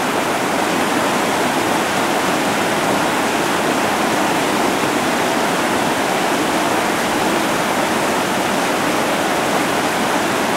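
River rapids: whitewater rushing steadily over rocks, a loud, even wash of water noise.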